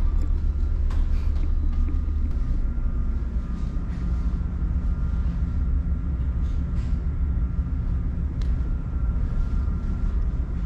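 Steady low rumble and hum of a ferry's engines, heard inside the ship, with a few faint clicks.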